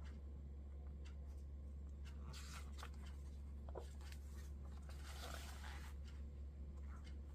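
Packaging being handled: faint rustling and scraping in two longer swells, with a few light clicks, over a steady low hum.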